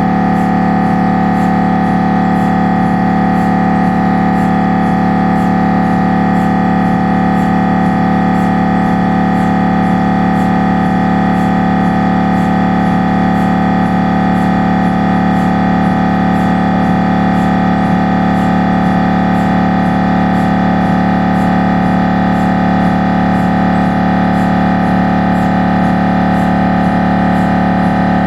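Siemens Magnetom Avanto 1.5 T MRI scanner's gradient coils running a scan sequence: a loud, steady buzzing drone made of several held pitches, with faint regular ticks.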